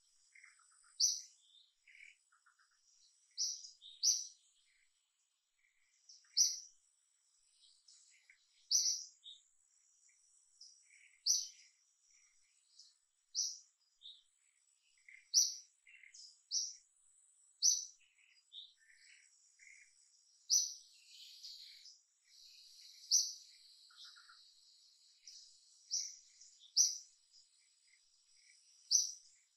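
A bird calling with short, high chirps, repeated every one to two seconds, over a faint steady high tone.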